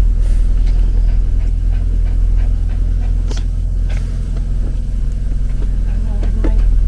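Car engine idling, a steady low hum, with a few sharp clicks over it.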